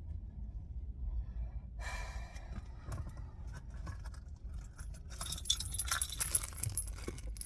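Keys jangling and small items clinking and rustling as someone rummages, growing busier and louder past the middle, over a low steady rumble.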